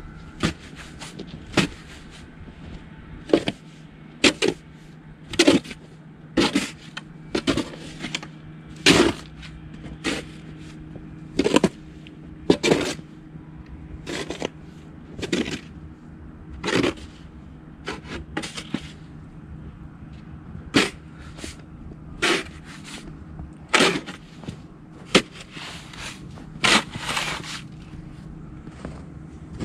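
Snow shovel blade scraping and knocking on the sidewalk as packed snow is cleared, a sharp scrape or knock roughly once a second, some strokes drawn out into short scrapes.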